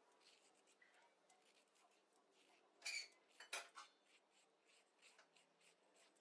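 Metal kitchen utensils clinking twice, about half a second apart, with a short ring after each, amid faint small handling noises.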